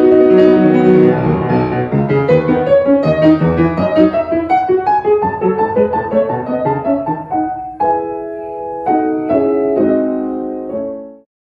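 Steinway grand piano played in a fast, full-textured classical passage. About eight seconds in it changes to repeated, separated chords, and the last chord is cut off abruptly.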